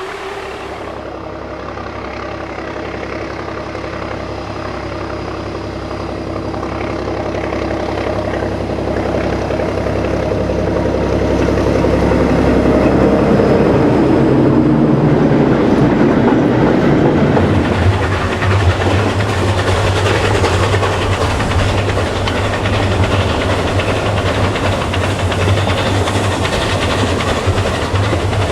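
A train running on rails with a clickety-clack, growing louder over the first dozen seconds and then running on steadily.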